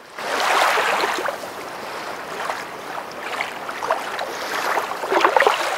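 Running water, a steady rushing hiss, with a few faint short sounds near the end.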